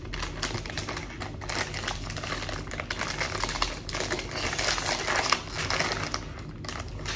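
Plastic snack packaging crinkling and crackling as hands work at opening it.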